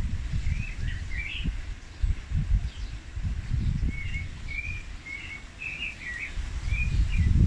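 Wind gusting on the microphone as a low rumble, growing stronger near the end, with a small bird chirping short calls: a few near the start and a quick series from about four seconds in.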